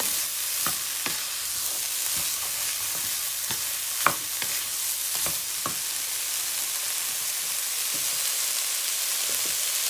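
Ground meat and diced bell peppers sizzling in a frying pan while a wooden spatula stirs them, with scattered taps and scrapes of the spatula against the pan and one sharper knock about four seconds in.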